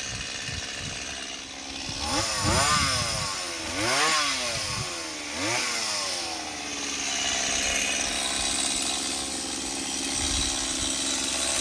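Mini chainsaw running, its pitch swinging up and down three times about two to six seconds in, then running steady.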